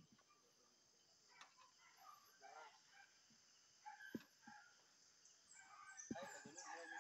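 Faint outdoor ambience: scattered bird calls over a steady high hiss, with a few soft knocks from a ladder against a utility pole as a worker climbs it.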